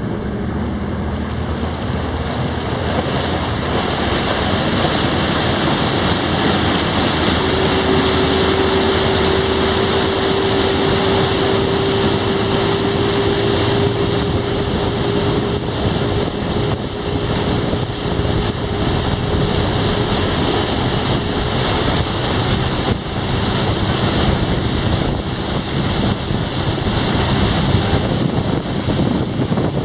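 Motorboat under way at speed: its engine running, with water rushing past the hull and wind buffeting the microphone. The sound grows louder over the first few seconds as the boat picks up speed, and a faint engine hum shows through from about seven seconds in until about twenty seconds in.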